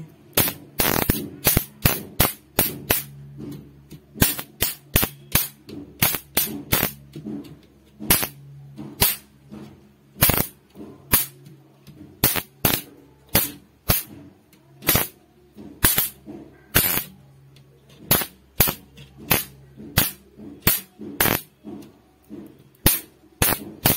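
Electric mosquito racket's charged wire grid arcing as a screwdriver tip is touched to the mesh: a long, irregular series of sharp electric snaps, one to three a second. The snaps show that the repaired high-voltage circuit is working.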